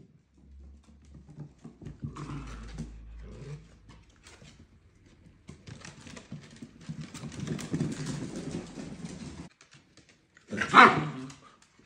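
Miniature dachshund puppies growling as they play-fight, in two rough stretches, then one short, loud bark about a second before the end.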